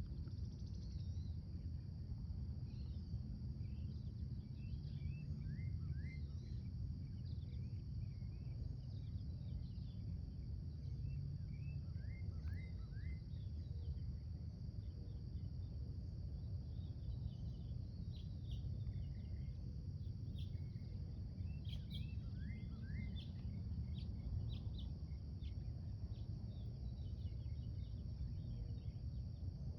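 Birds chirping in short, scattered notes over a steady low rumble and a constant high-pitched hiss.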